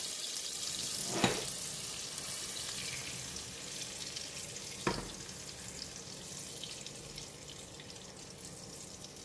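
Oil in a wok still sizzling after the heat is switched off, fading slowly, with two short knocks of a silicone spatula against the wok, about one and five seconds in, as fried salted fish, garlic and chillies are scraped out into a bowl.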